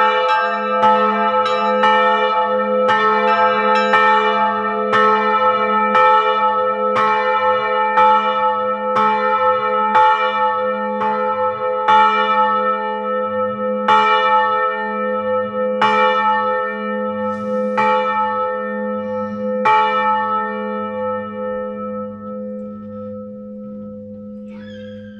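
Two cast-bronze church bells, a 550 kg bell tuned to A and a 30 kg bell tuned to E, ringing as they swing to rest. The clapper strikes come less and less often and stop about 20 seconds in, leaving a low hum that dies away.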